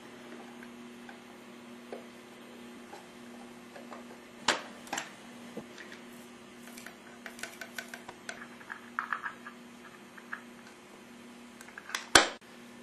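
Sera Feed A Plus automatic fish feeder clicking as it is handled and worked: two sharp plastic clicks, then a run of small quick ticks, and one loud click near the end. A steady low hum lies underneath.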